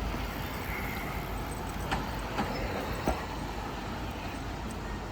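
Busy street ambience: steady road traffic noise, with a few short sharp clicks about two to three seconds in.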